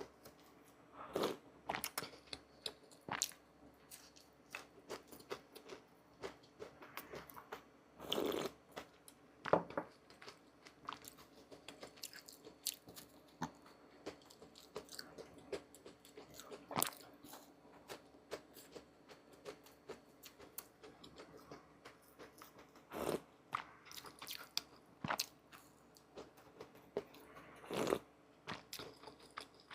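Hand food preparation: irregular crisp crunches and clicks, with a few louder cracks spread through.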